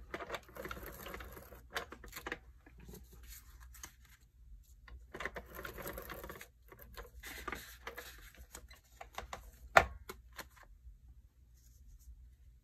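Scotch Advanced Tape Glider (an ATG tape gun) run across paper in several strokes, its tape-feed mechanism giving a rattling whir full of small clicks, with one sharp click about ten seconds in. Light paper handling between strokes.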